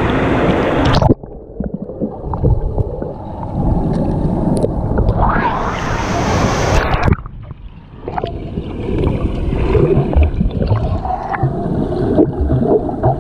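Swimming-pool water splashing and gurgling, heard from a camera bobbing at the waterline: bright splashing and open pool noise while it is above the surface, cutting suddenly to a muffled underwater rumble about a second in and again around seven seconds in.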